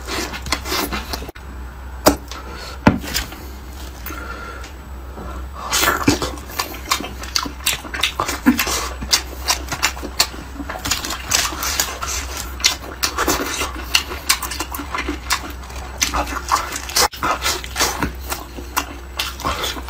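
Close-miked eating sounds: wet chewing and lip-smacking with many sharp, irregular clicks, sparser for a few seconds about a second in, over a steady low hum.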